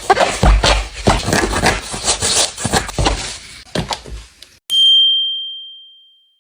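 Rustling and knocking of a shoe box and its packaging being handled for about four seconds. Then a single high ding rings out and fades away.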